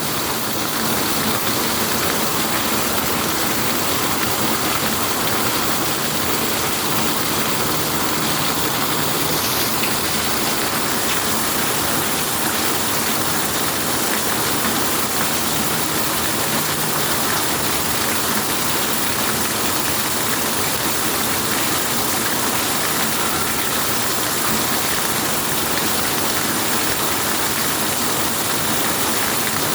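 Steady rain falling: a loud, even hiss that does not let up.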